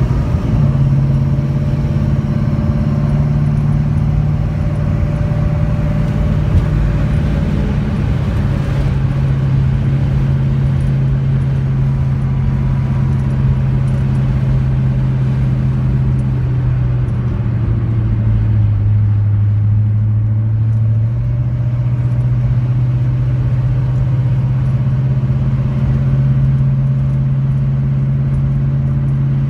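1970 Pontiac GTO V8 engine running at a steady light cruise, heard from inside the cabin along with road noise. Its note sags lower for a few seconds about two-thirds of the way through, then picks back up.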